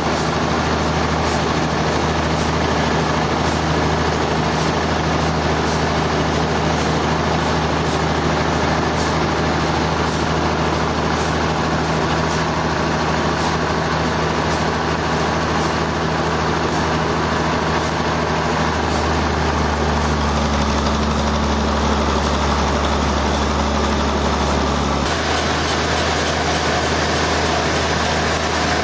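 Sawmill machinery running steadily with an engine-like drone. Its tone changes about two-thirds of the way through and shifts abruptly again near the end.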